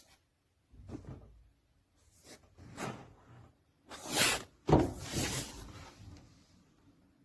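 A series of brief rustling, sliding handling noises, each a short swish; the loudest come about four to five and a half seconds in.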